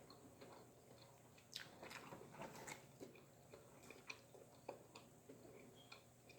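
Faint chewing, with scattered small mouth clicks, a few slightly louder ones about two seconds in.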